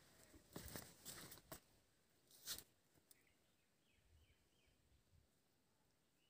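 Near silence: a few faint short rustles in the first couple of seconds, then several faint high chirps of a small bird about three seconds in.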